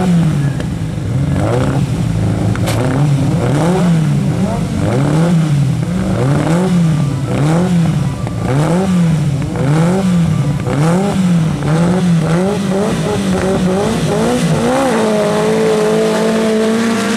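Engine of a Volkswagen Beetle-based autocross sprinter at the start line, revved up and down in a steady rhythm a little more than once a second. About fifteen seconds in, the revs rise and hold as the cars launch off the line.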